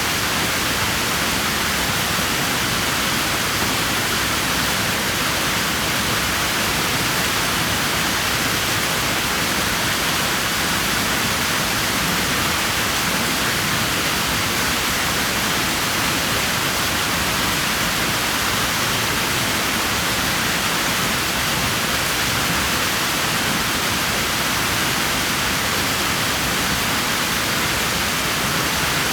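Swimming pool water rushing steadily: an even, unbroken hiss with no single splash standing out.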